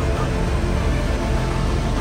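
Background music with sustained, steady notes.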